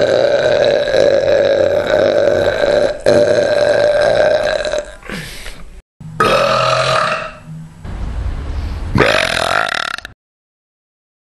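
A man burps on purpose, long and loud: one drawn-out burp of about three seconds, then three or four shorter ones with brief pauses between them. The last one rises in pitch before cutting off.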